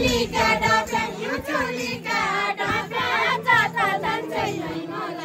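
A group of voices singing a Deuda folk song together, with a few sharp beats under the singing.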